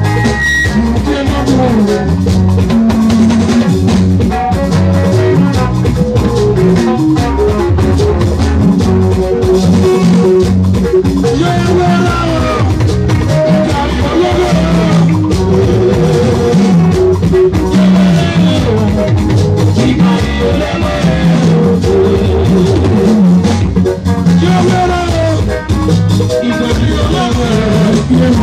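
Live Edo band music: electric guitars over a drum kit's steady beat, with a man singing lead into a microphone.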